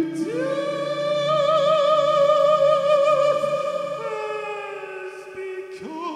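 A man singing long held notes with a wide vibrato into a microphone. The first note swoops up and is held for about three seconds. A lower note enters about four seconds in and sinks slowly, and another note begins near the end.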